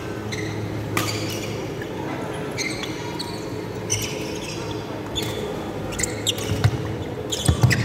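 Badminton rally in a sports hall: several sharp racket strikes on the shuttlecock, loudest near the end, with short squeaks of shoes on the wooden court floor.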